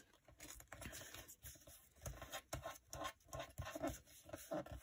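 Scrapbook paper pages rustling and scraping as hands smooth them flat and press tape down along the join, with a few light taps.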